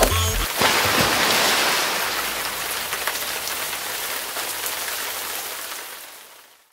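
A last low bass hit from electronic music, then a steady rain-like hiss that fades out over about six seconds.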